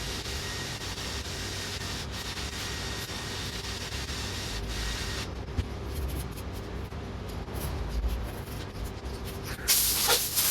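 Aerosol can of high-temperature copper grease spraying in a long hiss that stops about five seconds in. Light clicks and handling follow, then a louder spray burst near the end.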